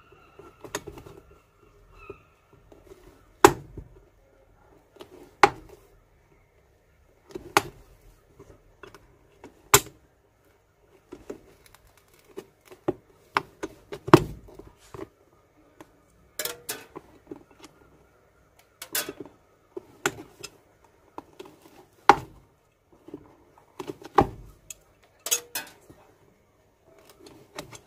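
Pliers pulling old nails from inside a leather shoe: irregular sharp metallic clicks and snaps, spaced a second or more apart, with softer scraping and rustling between.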